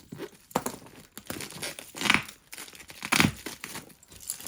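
Parcel packaging being torn and crumpled by hand in irregular rustling bursts, the loudest about two and three seconds in.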